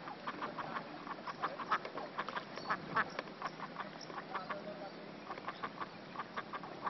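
Ducks quacking: many short calls in an irregular stream, several a second.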